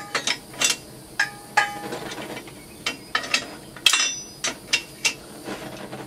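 Irregular light metal-on-metal clinks and taps, about a dozen, each with a short ringing tone, as hand-held steel tools knock together.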